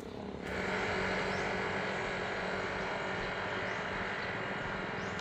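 A steady engine-like hum of a vehicle running nearby, coming up about half a second in and holding, with a few faint short high chirps over it.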